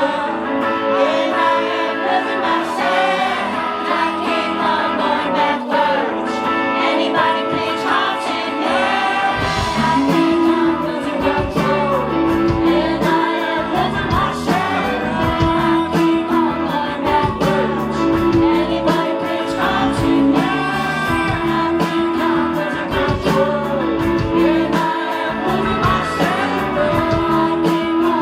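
Live rock band playing, with a male lead vocal over electric guitar; about nine seconds in, bass and drums come in with a steady beat.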